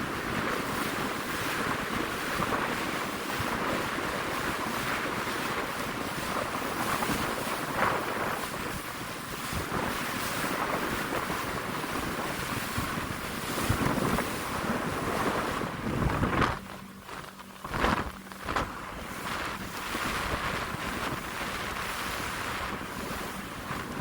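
Strong wind buffeting the microphone, with surf rushing underneath; the gusting eases briefly about 17 seconds in, then picks up again.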